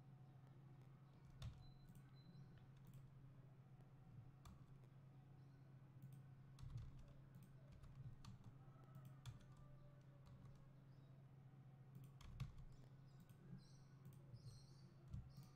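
Faint, scattered clicks of a computer keyboard and mouse, over a low steady hum.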